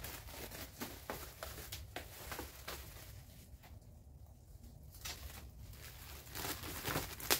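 Faint rustling and crinkling of plastic bubble wrap being handled, with scattered small clicks, as a self-adhesive Velcro piece is pressed onto it.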